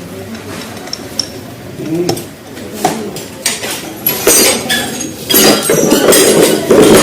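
Metal tools and engine parts clinking and knocking during motorcycle engine work: scattered light clinks at first, then a louder, busier run of knocks and rattles from about four seconds in.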